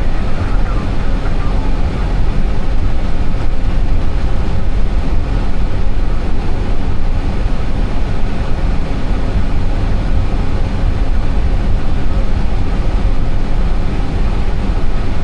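Steady cockpit noise of an Airbus A320 taxiing: an even, deep rumble from the idling engines and airflow, with no change in level.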